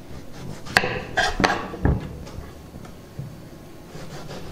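A kitchen knife cutting a bottle gourd on a chopping board: about five sharp knocks of the blade hitting the board in the first half, then quieter.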